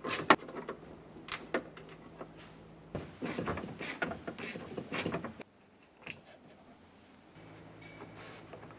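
Ratchet and socket clicking as the nuts are backed off the exterior door handle's studs, in scattered clicks and then a busy run of them from about three to five seconds in, before going quiet.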